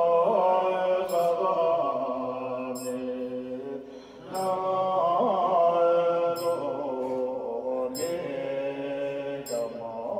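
Buddhist monks chanting prayers together in long held tones, with a short pause about four seconds in. A short high ring sounds about every second and a half alongside the chant.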